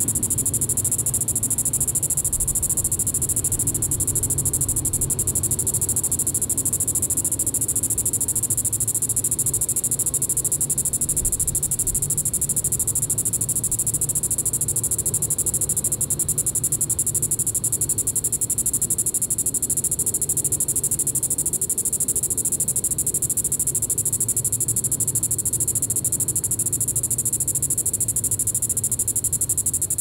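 Green-winged cicada (Diceroprocta vitripennis) calling: a steady, unbroken high-pitched buzz.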